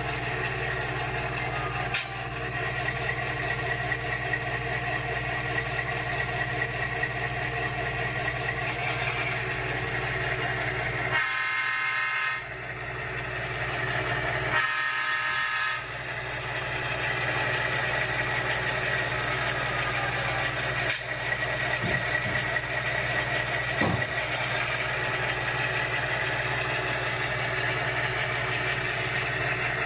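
Model diesel locomotive's onboard sound system playing a steady diesel engine rumble. A little before the middle it is broken by two horn blasts, each about a second long and two or three seconds apart. A few sharp clicks are heard as well.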